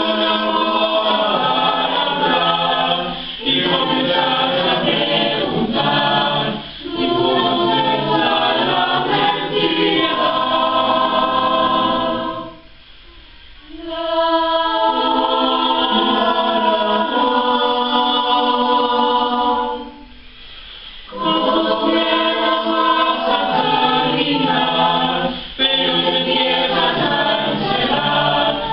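Mixed-voice choir of teenage girls and boys singing a cappella in long sustained phrases, pausing briefly twice between phrases, about halfway through and again about two-thirds through.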